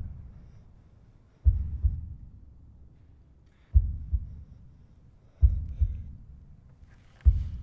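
Slow heartbeat sound effect: low, muffled lub-dub double thumps repeating about every two seconds.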